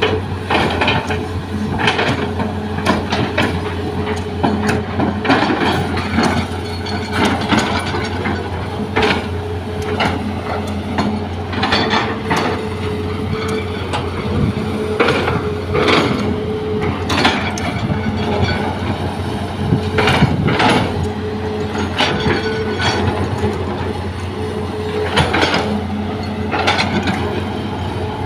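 Hitachi hydraulic excavator at work: a steady heavy diesel drone with irregular clattering knocks and crashes as its bucket digs and scrapes through rocky soil.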